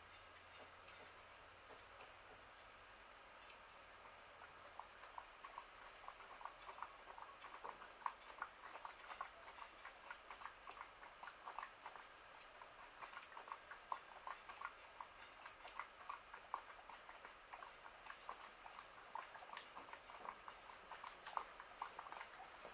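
Faint, irregular clicking, several clicks a second, starting about five seconds in over a low steady hiss.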